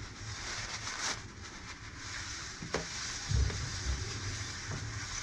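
Steady hiss of an aerosol brake cleaner spraying onto the motorcycle's brake parts, with a few dull knocks from handling the parts a little past halfway.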